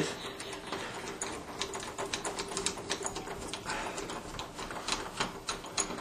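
Phillips screwdriver turning a door knob's mounting screw by hand, with light, irregular clicks of the tool and screw at the knob.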